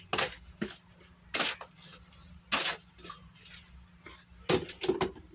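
Spoonfuls of sugar being scooped from a plastic jar and tipped into a plastic bowl: a series of short clicks and scrapes of the spoon, about six spread irregularly, two of them a little longer and hissier like sugar sliding out.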